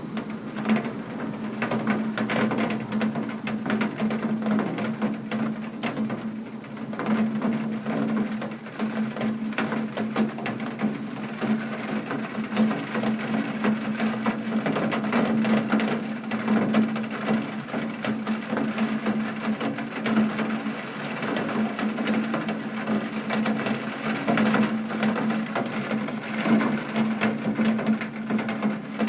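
Steady rain, with a dense run of drops tapping on a hard surface and a constant low hum underneath.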